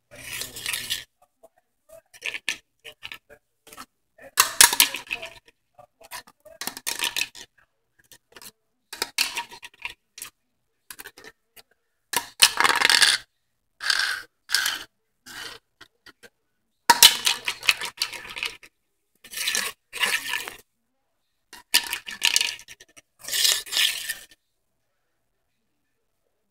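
A small clear hard object clattering and scraping on a ceramic tile floor in about a dozen short bursts of a second or less, with silent gaps between.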